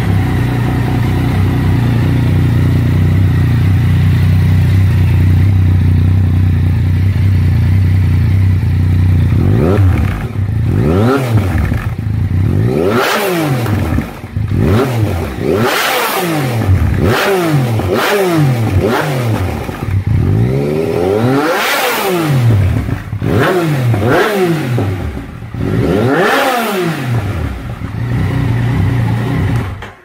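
Yamaha XSR900's inline three-cylinder engine breathing through an Akrapovič carbon exhaust, idling steadily at first, then revved in repeated quick throttle blips from about ten seconds in, the pitch shooting up and dropping back each time, about a dozen times.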